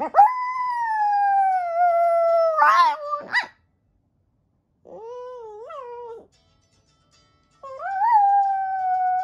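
A small dog howls in three long drawn-out howls. The first is the longest and loudest and slides down in pitch before breaking off, the second is quieter and lower, and the third starts near the end and holds steady. The dog 'sings' along to a phone alarm.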